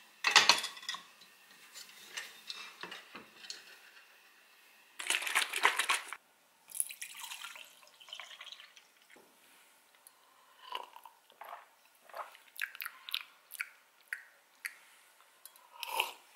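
A metal stovetop waffle pan clanks as it is flipped over on the gas burner, then, after a cut, pea milk is poured from a carton into a plastic cup, followed by light clicks and taps of the carton being handled. A loud rustling burst comes about five seconds in.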